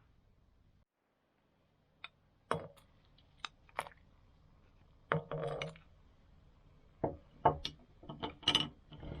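Kitchenware being handled: a series of irregular light knocks and clinks of glass and crockery, with a short clatter about five seconds in.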